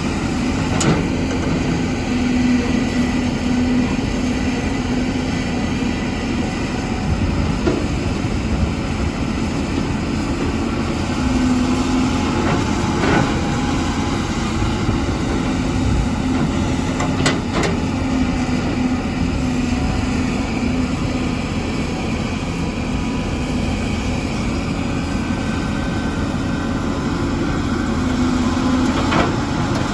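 Caterpillar 320 excavator's diesel engine and hydraulics running steadily under load, a low steady drone that swells now and then, with a few sharp knocks or clanks scattered through it.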